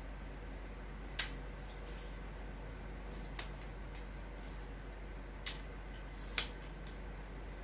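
Sharp plastic clicks from the Zomei Q111 tripod's flip-lock leg clamps as the leg sections are opened and extended. There are about four clicks spread over several seconds, the first and last the loudest, over a steady low hum.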